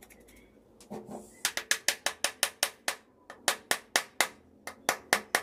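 A rapid run of sharp taps or knocks, about six a second, in three runs broken by brief pauses, with a softer knock just before.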